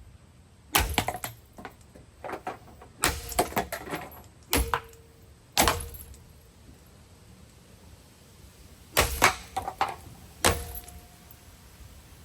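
A Hampton Bay Farmington ceiling fan being smashed: about seven bursts of sharp blows at irregular spacing, some followed by a brief metallic ring.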